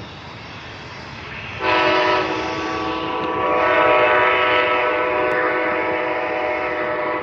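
Amtrak Pacific Surfliner train's locomotive horn. It starts suddenly about one and a half seconds in and is held as one long chord of several pitches for over five seconds, with a slight dip near the middle, then stops.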